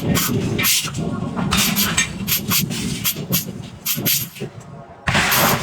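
Forge shop working hot iron: irregular sharp metallic knocks and clanks over a steady low rumble, with bursts of hiss about one and a half seconds in and again near the end.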